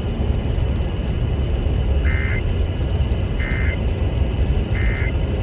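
Emergency Alert System end-of-message data burst: three short, buzzy two-tone digital bursts about 1.4 s apart, marking the end of the flash flood warning. They play over a steady low rumble and hiss.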